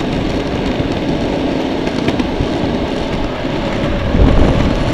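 Wind buffeting the camera microphone over the roar of a longboard's big urethane racing wheels rolling fast on asphalt, a steady rough rush that gets louder near the end.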